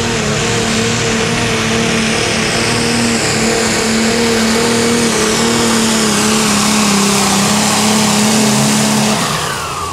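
Allis-Chalmers light limited super stock pulling tractor's turbocharged diesel engine held at full throttle while pulling the sled, a steady loud pitch with a high turbo whine over it. About nine seconds in the throttle comes off and the whine winds down.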